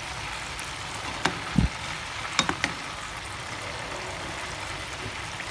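Floured fish frying in hot oil in a pan, a steady sizzle. A slotted metal spatula clicks lightly against the pan a few times, about a second in and again around two and a half seconds in, with a low thump between.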